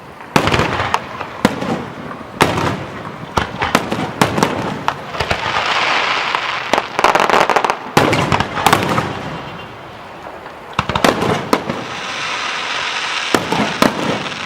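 Aerial fireworks going off: repeated sharp bangs of shells bursting, with dense crackling stretches around the middle and near the end.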